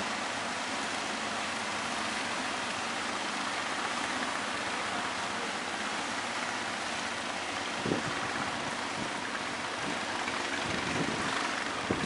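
Steady hiss of ocean surf breaking on the shore, with a brief low thump about eight seconds in.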